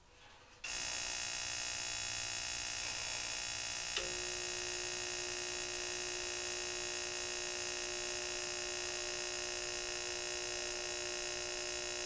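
Dyna-Glo Delux 50,000 BTU kerosene forced-air heater's electric motor and fan starting up just under a second in and running steadily with a hum of many fixed tones. A click about four seconds in brings in a steady lower hum. The burner does not light.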